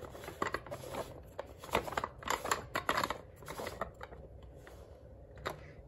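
Black cap on a Lux Guardian Angel air purifier's lid being twisted into place by hand, making a run of short clicks and scrapes for the first three seconds or so, then one more click near the end as it seats snug.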